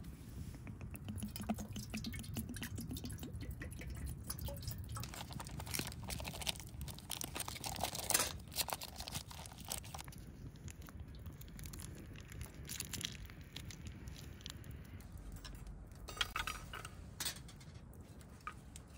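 Rustling and small taps as an electric heated vest and its USB battery cable are handled and the vest is put away, irregular throughout with a louder burst of handling about eight seconds in.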